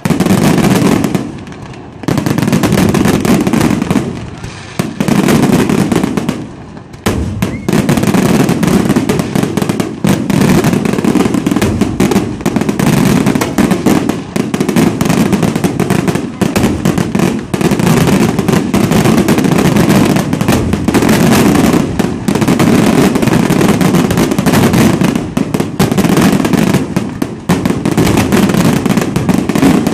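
Fireworks display: aerial shells bursting in rapid succession, with short pauses in the first few seconds, then from about seven seconds in a continuous, dense barrage of explosions.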